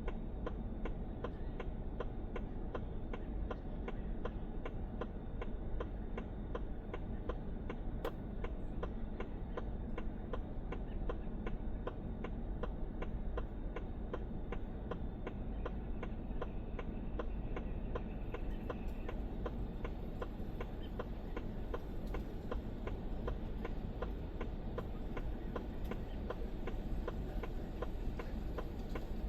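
A car's turn-signal flasher ticking at an even, fast rate over a low steady rumble.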